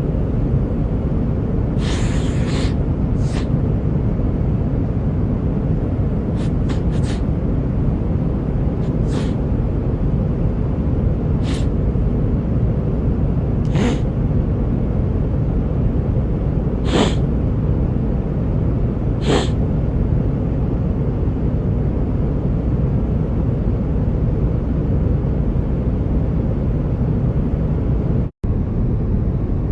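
A sick man sniffling, short sharp sniffs every couple of seconds through the first twenty seconds, then stopping. Over the steady low drone of an airliner cabin, which cuts out for an instant near the end.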